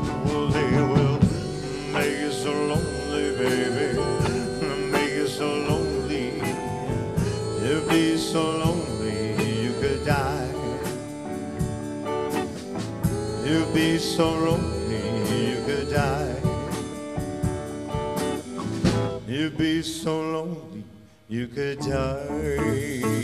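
Live rock-and-roll band playing an instrumental stretch: electric guitar over bass and drums. The music drops out briefly about 21 seconds in, then the band plays on.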